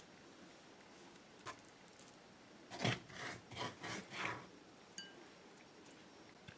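A few short scrapes as ground garlic and hot pepper paste is scraped out of a granite mortar, followed by a light clink about five seconds in.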